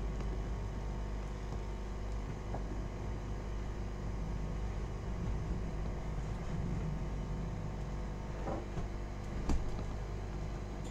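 Steady whirring hum of running workshop equipment, with a few faint clicks and one sharper tap about nine and a half seconds in.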